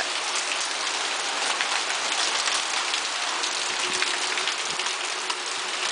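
Hail and rain falling steadily: a dense patter of many small hits.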